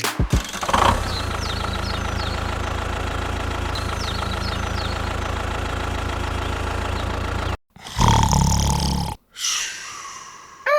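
Engine idling steadily, cutting off abruptly about seven and a half seconds in; a short, louder stretch of engine sound follows, then it turns quieter.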